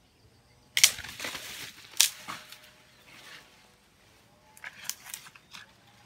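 A leafy branch being pulled from the bushes: two sharp cracks of wood snapping about a second and two seconds in, with dry leaves rustling between them and a few lighter clicks near the end.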